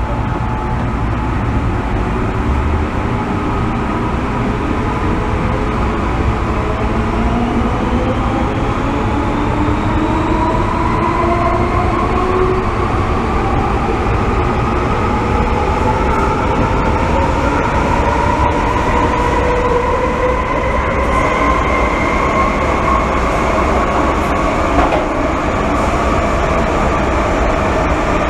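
MTR M-Train electric multiple unit heard from inside the car, its traction motors whining in several tones that rise steadily in pitch as the train accelerates, over continuous running noise. A single brief click comes near the end.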